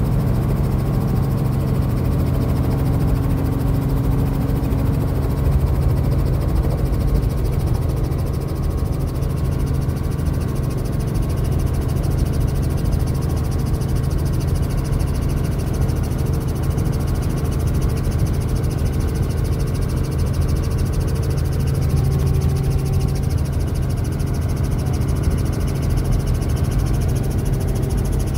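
Small helicopter's engine and rotor running at flight power, heard from inside the cabin as it lifts off and climbs: a loud, steady low drone with a hiss over it, changing little.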